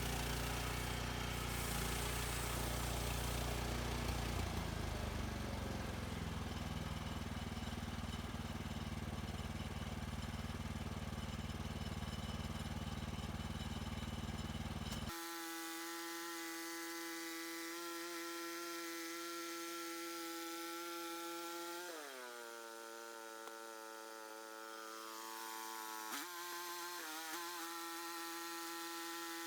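Portable sawmill running as it cuts through a pine log: a steady engine and saw drone. About halfway it changes abruptly to a steady high whine, which sinks in pitch for a few seconds and then climbs back.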